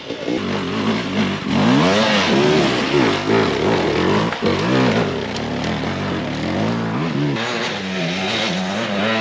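Hard-enduro dirt bike engines revving up and dropping back again and again, the pitch swinging about once a second. Near the end they settle into a steadier, lower note.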